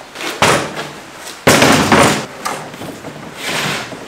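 Knocks and clatter of a wooden plank and a plastic side skirt being handled and set down on a folding work table, several separate knocks with the loudest about a second and a half in, then a softer swell of noise near the end.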